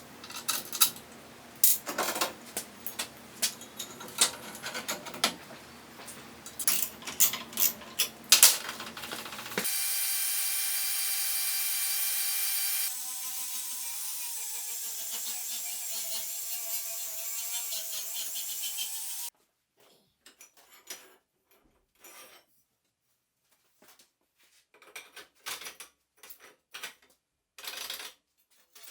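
Workshop tool sounds: for the first third, a run of sharp clicks and knocks. Then a power tool runs steadily and loudly for several seconds, its pitch wavering in the later part, and stops suddenly. Faint, scattered light clicks follow.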